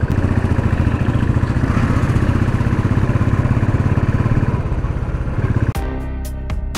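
Motorcycle engine running steadily with a fast, even rumble as the bike rides up a steep hill road. Near the end the engine drops back and background music with strummed notes comes in.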